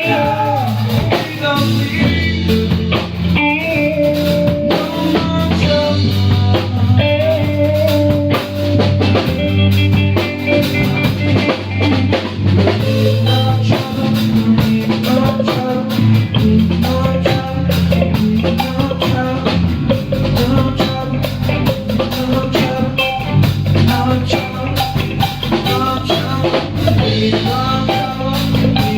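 Live band playing an instrumental jam: drum kit keeping a steady beat under bass notes and guitar lines.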